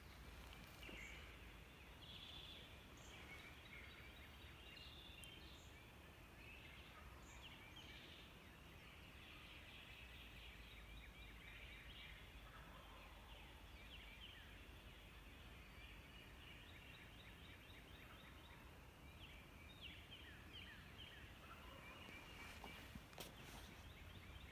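Wild turkeys gobbling, faint, many gobbles following one another with hardly a pause.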